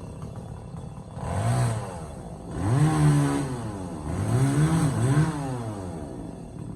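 Two-stroke chainsaw engine revved up and let back down four times, a short rev, a longer one, then two quick ones, idling in between.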